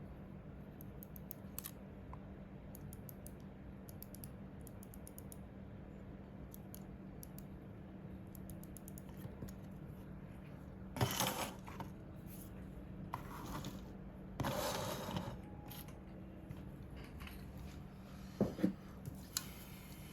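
Small plastic clicks and handling noises from working on a computer mouse: clusters of faint ticks, then several short, louder noisy bursts in the second half.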